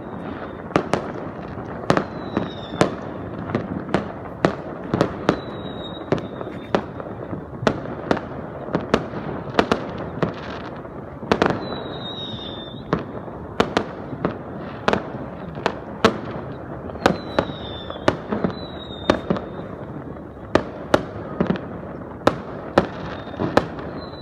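Fireworks display: sharp bangs of bursting shells, one to three a second at irregular intervals, over a continuous rolling rumble.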